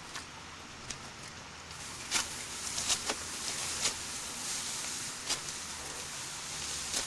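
Ripe rice stalks being cut by hand during harvest: a series of sharp, crisp cuts and snaps of the dry stalks amid rustling, most of them from about two seconds in.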